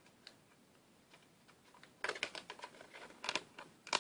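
Packaging being pulled apart by hand: quiet for about two seconds, then a run of quick crackling, clicking rustles.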